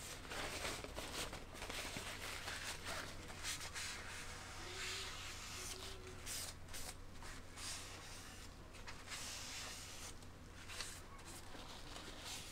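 Paper towel rubbed back and forth over the painted plastic of a scale model aircraft: a faint, repeated scratchy swishing of hand strokes.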